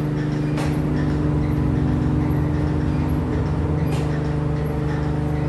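VD480PS COF bonding machine running with a steady low electrical hum made of several held tones, and two sharp clicks, about half a second in and about four seconds in.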